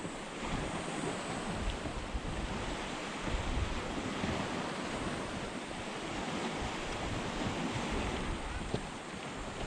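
Waves washing, with wind buffeting the microphone in irregular low gusts.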